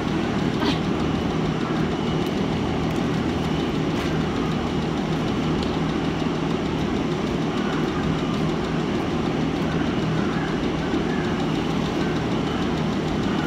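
A steady machine drone running without a break, with water from a hose spraying onto a concrete floor and splashing against a pillar.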